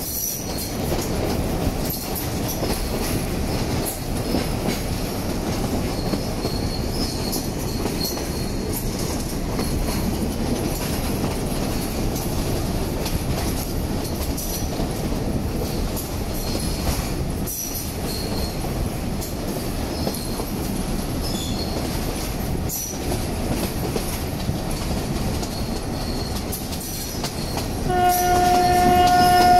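Sri Lanka Railways Class M6 diesel locomotive pair hauling a passenger train, heard from a coach window: steady rumble of wheels on rail and engines, with short high wheel squeals now and then on the curves. Near the end a locomotive horn sounds one long, steady note.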